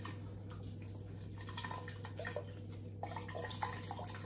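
Water spattering and dripping into a stainless steel pot as a handful of wet moss is squeezed out by hand, with a steady low hum underneath.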